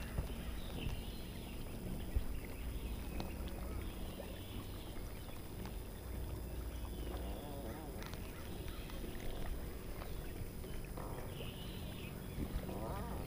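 Quiet open-water ambience from a bass boat: a steady low hum under faint, scattered calls of waterfowl, with no single loud event.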